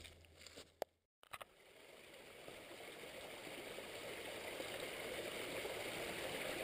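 Small woodland stream of spring meltwater running over stones, a steady rushing that fades in and grows louder after a brief cut to silence about a second in. Before the cut, a couple of sharp clicks.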